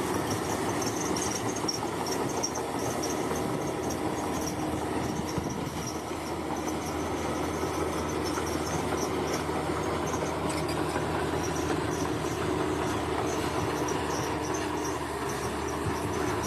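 Heavy construction machine's engine running steadily with a low drone, while insects chirp in a pulsing, high-pitched pattern.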